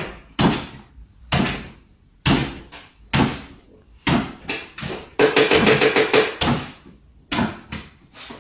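A series of about a dozen sharp knocks, each ringing out briefly, with a quick rattling run of them about five seconds in.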